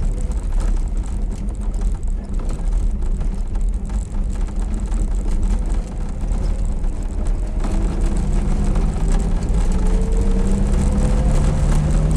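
Inside the cab of an Izh-2717 van on the move: the engine and road noise make a steady low rumble. From about eight seconds in, the engine note climbs slowly as the van speeds up.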